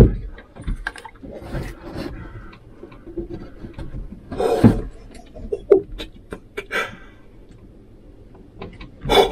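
Handling noise as a scoped bolt-action rifle is shifted and brought up to aim inside a small wooden hunting blind: scattered knocks and bumps of the rifle and gear, with clothing rustling. A sharp knock right at the start and another bump near the end are the loudest.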